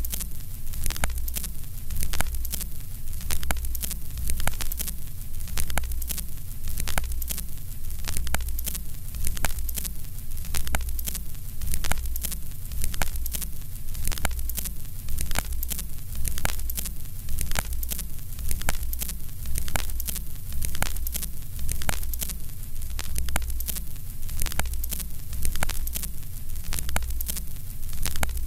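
Loud crackling static full of clicks over a low hum that swells and fades every second or two.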